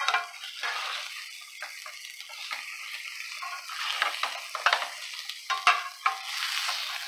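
Flour-dredged cube steaks sizzling in a hot skillet as they are turned over with a spatula, with a few short knocks and scrapes of the spatula against the pan in the second half.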